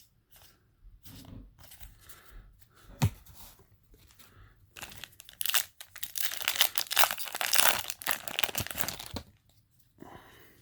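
Foil trading-card booster pack wrapper being torn open and crinkled: a dense crackling that runs for about four seconds in the second half, after a few light handling clicks and a single sharp knock about three seconds in.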